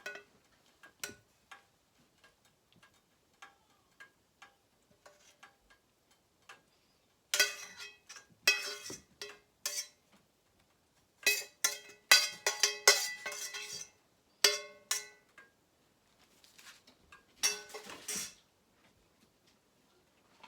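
A metal utensil clinking and scraping against cookware in several short clusters of ringing strikes, with scattered lighter clicks between, as the cooked chicken fajita is served out.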